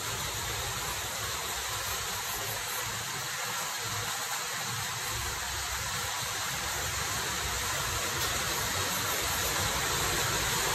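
Steady hiss of background noise, growing slightly louder toward the end.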